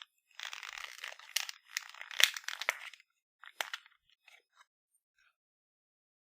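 Toy packaging being torn and crinkled open by hand: about two and a half seconds of rustling with a few sharp cracks, then a few scattered clicks before it stops about halfway through.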